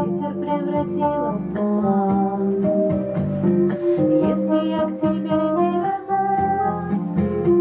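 Music: an instrumental passage of a slow pop ballad, with plucked guitar notes over a steady bass accompaniment.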